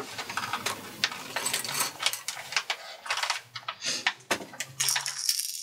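Light, irregular clicks and taps from handling a small crankbait lure and a small epoxy applicator while coating the lure with two-part epoxy.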